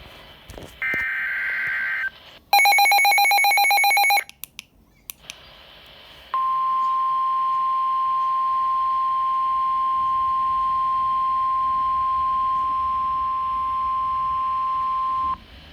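NOAA Weather Radio alert sequence. A short burst of high warbling data tones comes first. Then a loud, rapidly pulsing electronic beep lasts under two seconds, followed about two seconds later by the 1050 Hz warning alarm tone, one steady pitch held for about nine seconds before the warning message.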